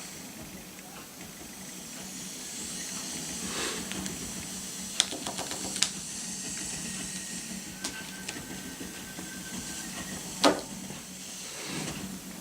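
Toy train engine running along toy train track: a steady hiss with a few sharp clicks, and a thin steady tone for a couple of seconds past the middle.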